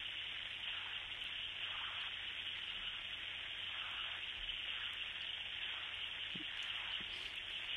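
Steady hiss of an open telephone line with a faint low hum underneath, and no voices.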